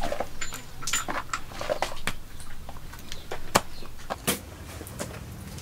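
Hands folding and pressing a sticky mass of raw chicle gum on a plastic sheet: irregular wet smacks of the gum and crinkles of the plastic.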